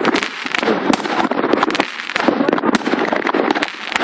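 New Year's fireworks going off without a break: a dense, overlapping run of sharp bangs and crackles from many aerial shells and rockets.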